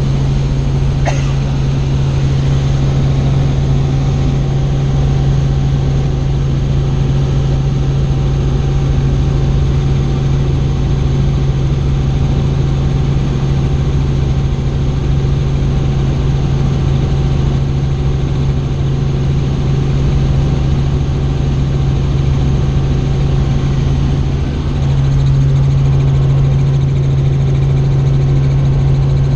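Helicopter in flight: a steady drone of rotor and engine with a strong low hum, heard from inside the cabin.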